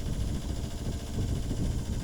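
Wind buffeting the microphone aboard a sailboat, an uneven low rumble that swells and fades.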